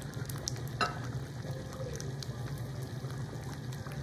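Thick tomato stew simmering in an enamelled cast-iron pot, bubbles popping in a steady crackle over a constant low hum.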